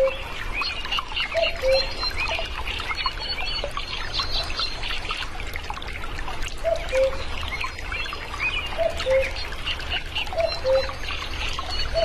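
Common cuckoo giving its two-note 'cu-ckoo' call, the second note lower, four times, with a long gap after the first. Behind it, small birds chirp constantly and water trickles steadily.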